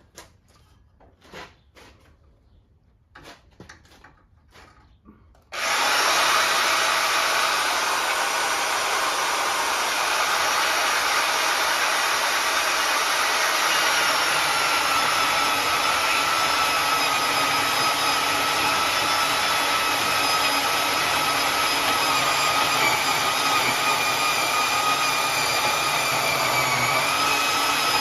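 A few light knocks of handling, then a power tool starts abruptly about five and a half seconds in and runs steadily at a constant loud hiss and whine while cutting.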